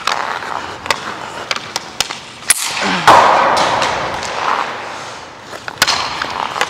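Hockey skates scraping and gliding on rink ice, with sharp knocks of stick and puck ringing through the arena. The loudest sound is a hard scrape about three seconds in that fades over a couple of seconds, and a few more quick knocks come near the end as a shot is wound up.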